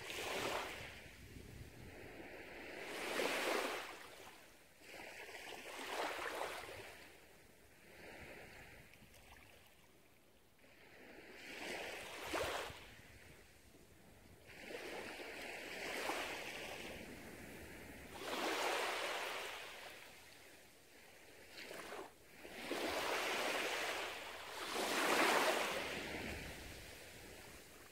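Small, gentle waves lapping and washing up onto a sandy beach, each wash swelling and fading away every few seconds.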